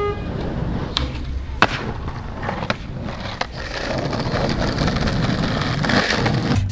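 Skateboard dropping in off a quarter pipe and rolling across rough asphalt: two sharp clacks of the board about a second and a second and a half in, a few lighter knocks after, then the wheels' rolling noise growing louder as the board comes closer.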